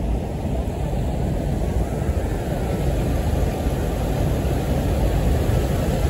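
Water pouring over a check dam and churning in the white rapids below it: a steady, deep rushing.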